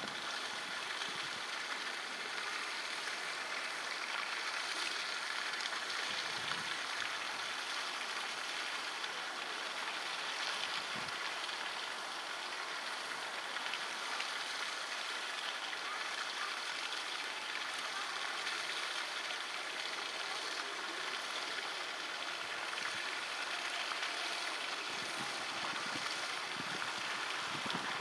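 Steady rushing of flowing stream water, an even hiss with no clear rhythm or breaks.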